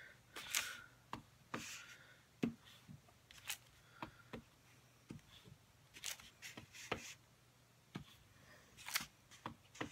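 Clear stamp on an acrylic block being tapped onto an ink pad and pressed onto cardstock on a stamping mat: a series of soft, irregular taps and clicks, about one or two a second, with a few light paper scuffs.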